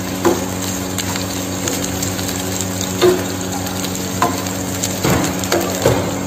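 Chicken pieces with garlic, ginger and green chilies sizzling in a non-stick frying pan, with a metal ladle stirring and scraping against the pan several times.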